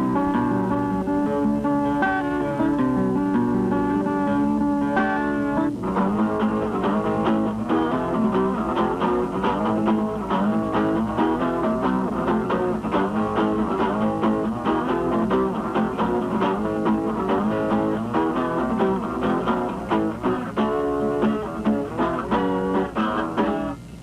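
Instrumental background music led by guitar: held chords for the first six seconds or so, then a busier passage of quick plucked and strummed notes.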